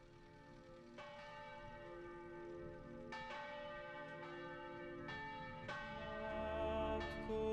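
Church bell struck about five times at intervals of one to two seconds, each stroke ringing on into the next, the sound fading up.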